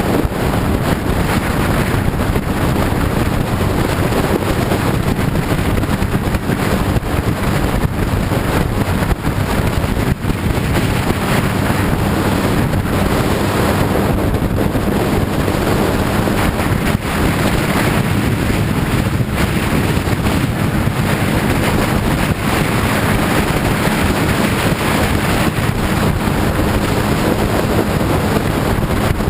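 Sport motorcycle running steadily at road speed, its engine hum buried under heavy wind rushing over the microphone.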